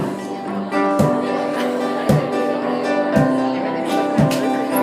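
Acoustic guitar strumming chords in a steady rhythm, with a sharp percussive hit on about every beat, roughly once a second, as the lead-in to a pop song.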